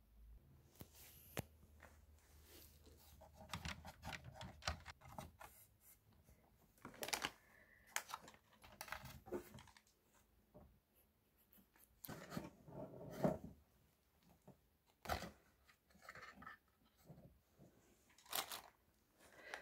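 A cat clambering through a wooden dollhouse: irregular light knocks, bumps and scraping rubs of its body and paws against the wooden walls and floors, coming in short scratchy clusters with a few sharper knocks.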